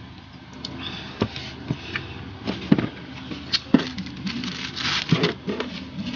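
Close mouth and handling noises: a few sharp knocks and clicks as a plastic drinking tumbler is handled and set down, then a paper tissue rustling as it wipes the mouth near the end.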